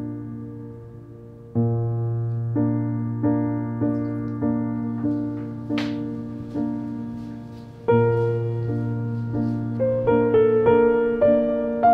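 Background piano music: soft chords struck in an even, repeated pattern, turning to a busier line of higher notes near the end. A brief hiss about six seconds in.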